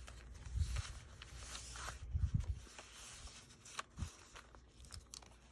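Paper pages of a handmade junk journal being turned by hand: soft rustling and light ticks of paper, with three dull thumps as pages are laid down.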